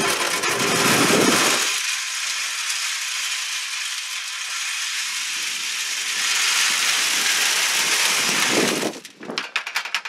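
Wood pellets pouring from a plastic bucket into a pellet smoker's metal hopper, a steady rushing clatter. About nine seconds in it thins to scattered ticks as the last pellets trickle in.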